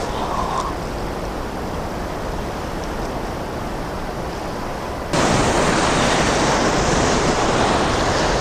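Steady rushing of the partly frozen Great Falls, with open water still pouring under the ice, mixed with wind on the microphone. About five seconds in the noise jumps abruptly louder and brighter.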